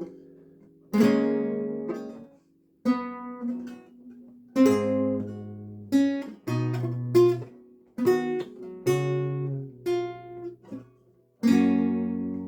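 Renaissance lute played solo: plucked chords and single notes, each struck sharply and left to ring and fade, with a short pause about two and a half seconds in and another near the end.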